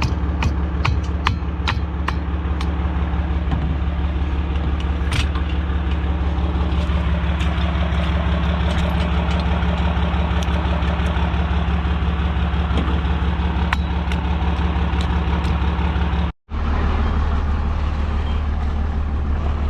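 A 5.9 Cummins 12-valve turbo-diesel truck engine idling steadily, with several sharp clicks in the first few seconds. The sound cuts out for a moment about three-quarters of the way through.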